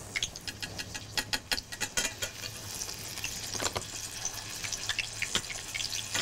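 A tempura-battered cabbage leaf frying in hot sunflower oil in a saucepan, the oil crackling and popping densely from the moment the leaf goes in.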